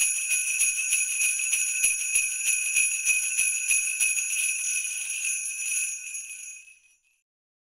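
Jingle bells shaken in a steady rhythm, about four shakes a second, fading out about six seconds in.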